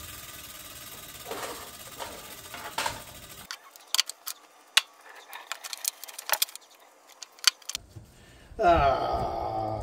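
Metal tools and parts clinking and rattling on a workbench as they are handled, as sharp separate clicks. About nine seconds in comes a louder whirring that falls in pitch.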